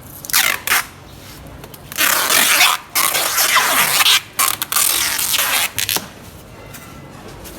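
A series of harsh scraping sounds in four bursts: a short one just after the start, then longer ones about two, three and four and a half seconds in.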